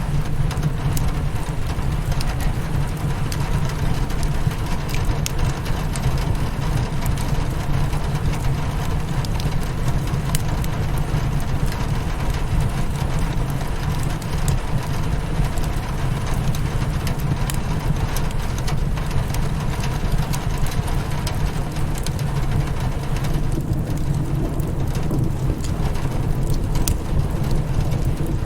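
Rain on a windowpane mixed with a crackling fireplace: a steady, even hiss of rain, with scattered small sharp pops from the fire.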